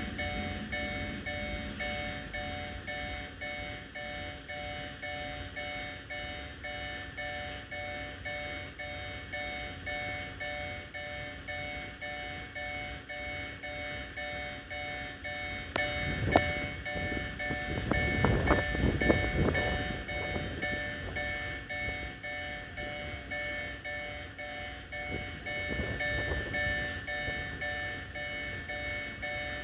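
Japanese railway level-crossing warning bell ringing, an electronic ding repeating in a quick even rhythm. About halfway through come two sharp clicks, then a few seconds of rumbling noise.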